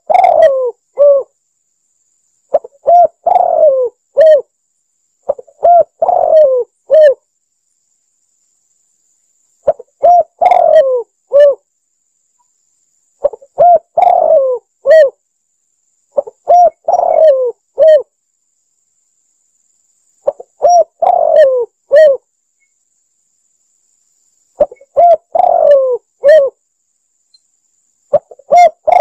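Spotted dove (tekukur) cooing: a lure-call recording of its song, short phrases of several throaty coo notes repeated about every three to four seconds, with complete silence between phrases.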